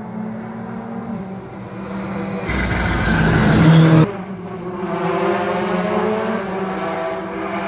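Rally car engine revving hard on the climb, its pitch rising and falling with gear changes as it approaches. A loud rushing noise covers it for about a second and a half in the middle, then cuts off sharply.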